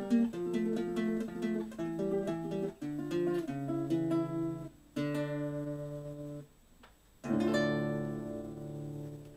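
Solo classical guitar playing the closing bars of an estilo pampeano. Picked notes and a run lead to a chord held for about a second and a half, then a short pause. A final chord about seven seconds in is left to ring and slowly fade.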